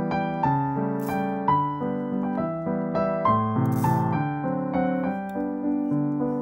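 Background piano music playing a steady run of notes. Twice, about a second in and again about four seconds in, a brief dry rattle of small whole seeds being tipped from a spoon into a dry metal pan.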